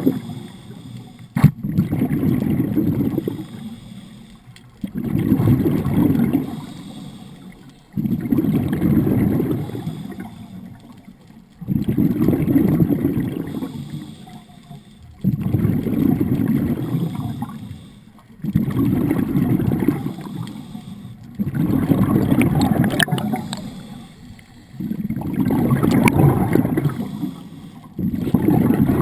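Scuba diver breathing out through a regulator underwater: a loud, low rush of exhaust bubbles with each breath, about every three and a half seconds, with quieter gaps for the breaths in. There is one sharp click about a second and a half in.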